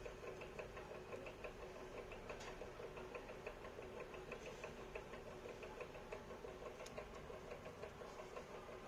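Budgie chick peeping in a rapid, steady series of faint, squeaky cheeps, about four or five a second, typical of a nestling begging for food.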